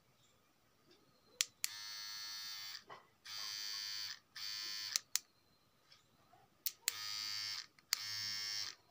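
Maxtop T-blade beard trimmer switched on and off repeatedly: five short runs of its buzzing motor, each about a second or less, with sharp switch clicks at the starts and stops.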